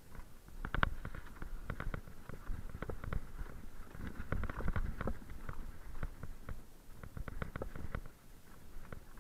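Mountain bike clattering over a rough, rocky dirt trail: a dense run of irregular knocks and rattles from the bike and its tyres striking stones and ruts, with the loudest knock about a second in.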